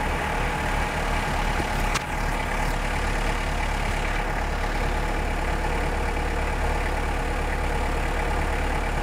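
Car engine idling steadily as it warms up, heard from inside the cabin. A brief click about two seconds in.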